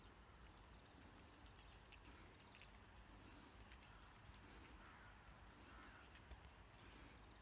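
Near silence of outdoor ambience, with a faint, distant deer call about five seconds in.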